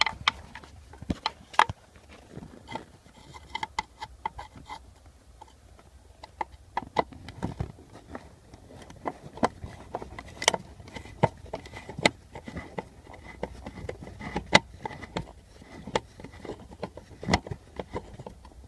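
Irregular plastic clicks, taps and knocks from the centre-console trim of a 1994–97 Honda Accord being handled and worked loose by hand.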